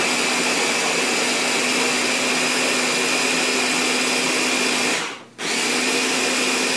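A Ninja blender runs loud and steady, blending a thick frozen-berry protein shake. It cuts out briefly about five seconds in, then starts again.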